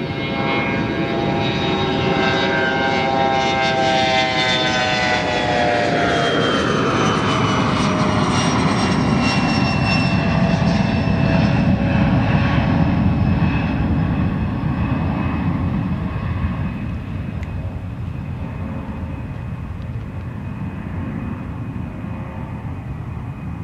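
Bombardier Challenger CL60 business jet's twin rear-mounted turbofans at takeoff power through the takeoff roll and climb-out. A whine of several tones drops in pitch about six seconds in, then a deep rumble peaks and slowly fades as the jet climbs away.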